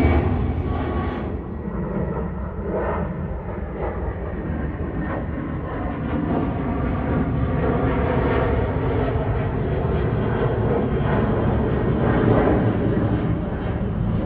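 Jet engines of a Boeing 737 freighter climbing out after takeoff, a steady rumble that builds again after a quieter spell a few seconds in.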